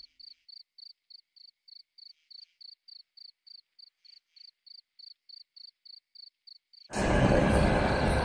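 Cricket chirping, a steady run of short high chirps at about three a second. About seven seconds in, a sudden loud roar cuts in over it.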